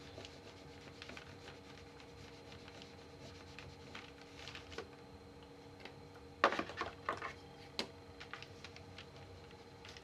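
A Gelatos gel crayon rubbing and scratching faintly across paper as a stripe is coloured in, over a steady low electrical hum. A little past the middle comes a short run of sharp clicks and knocks.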